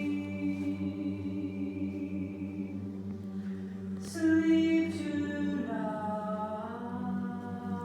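Choir singing slow, held chords. A louder new chord comes in about four seconds in, with two crisp 's' sounds, and the voices slide upward a little after.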